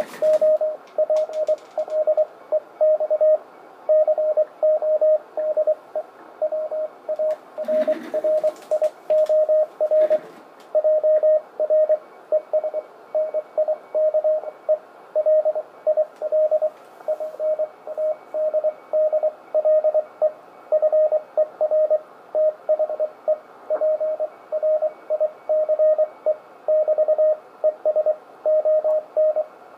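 Morse code (CW) signal received off the air on the 20-meter amateur band: a single mid-pitched tone keyed on and off in dots and dashes over faint band hiss, sending "...I'm using a Vibroplex Code Warrior Jr es nice lil paddle fer the price". A few brief crackles of static about eight and ten seconds in.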